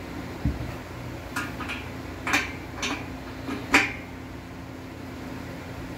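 A dull thump, then about six sharp, irregular metal clinks over a couple of seconds, the last the loudest, as a hand tool and bolt hardware knock against the steel nerf bar mounting bracket being fastened to the truck frame, over a steady low hum.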